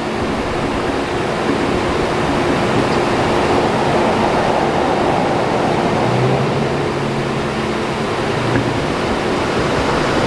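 Steady roadside noise from traffic and running vehicle engines. A low engine hum comes in about six seconds in and fades out around nine seconds.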